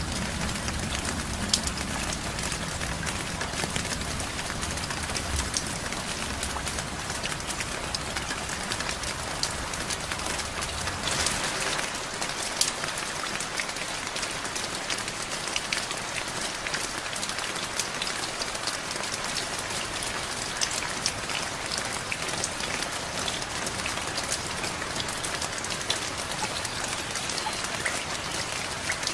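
Steady rain falling, a dense even patter of drops. A low rumble underneath drops away about eleven seconds in.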